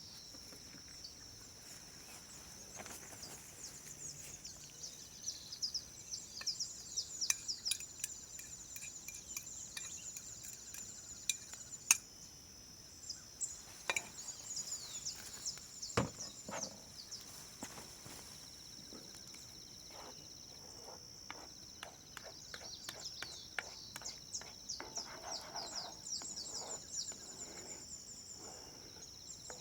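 Outdoor ambience: a steady high-pitched insect drone with runs of quick falling bird chirps, and scattered sharp knocks and clicks, the loudest about twelve and sixteen seconds in.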